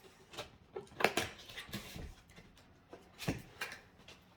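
Packaging being handled as a boxed candle warmer is unpacked: rustling and scraping with a few sharp knocks, the loudest about a second in and again past three seconds.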